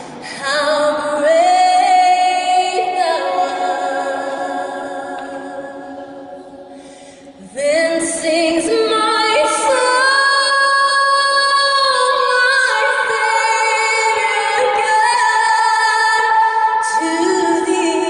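A woman singing a cappella, holding long notes with vibrato. Each note rings on in the stone church's long reverberation, so successive notes overlap. A phrase fades away and a new one starts loudly about halfway through.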